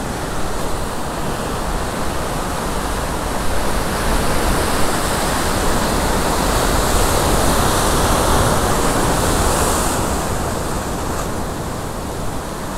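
Ocean surf breaking and washing over rocks close by: a continuous rush of white water that swells from a few seconds in as a wave breaks, then eases near the end.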